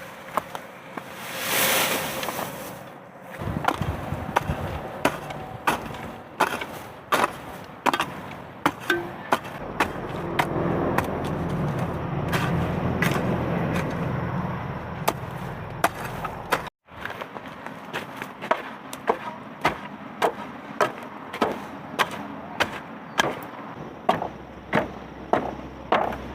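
Rhythmic sharp knocks of a tool striking wood, about two a second, as in chopping, with a rustling swell near the start and a broader low rushing sound in the middle; the knocks break off for an instant about two-thirds through.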